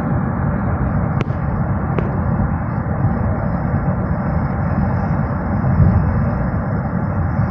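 Steady low road and engine rumble inside a moving car's cabin, with two light clicks a little under a second apart early on.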